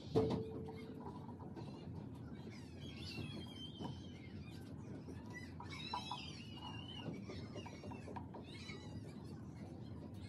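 Birds chirping in the background in short gliding calls, over the steady rub of an oil pastel on paper. Just after the start comes a sharp knock with a brief ringing tone.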